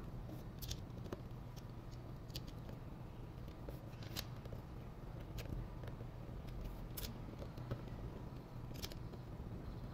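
Scattered light clicks and scrapes as small screws are handled and started by hand into the plastic back housing of a motorcycle instrument cluster, over a steady low hum.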